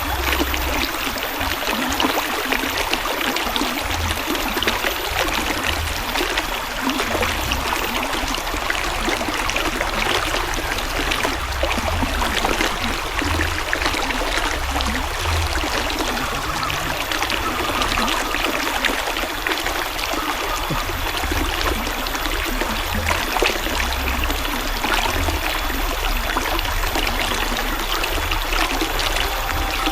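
River water flowing steadily with a trickling, babbling sound.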